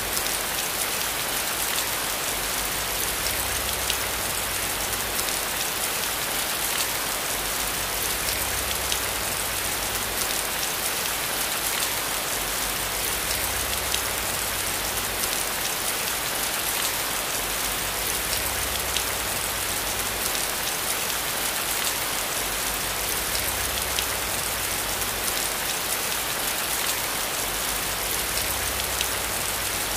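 Steady hiss and light patter of falling water, with faint scattered ticks throughout.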